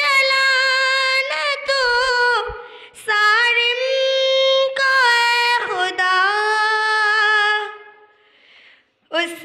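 A young female voice singing an Urdu naat solo and without instruments, through a microphone, holding long notes that glide between pitches. Near the end she breaks off for about a second before starting the next line.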